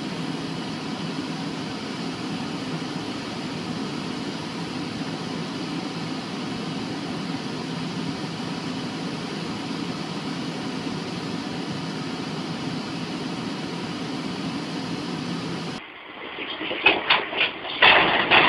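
Steady low hum of an idling vehicle engine and fan heard from inside the cab. About two seconds from the end it cuts to a run of loud, irregular sharp sounds.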